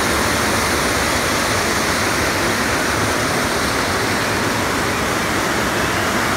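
River water rushing steadily over rocks below, an even unbroken water noise.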